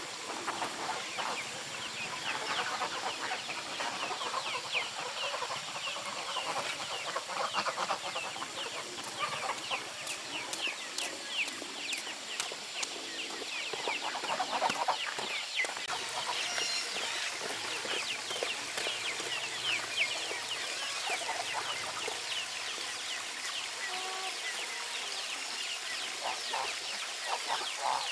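A flock of chickens clucking and calling continuously, with many short, high calls overlapping.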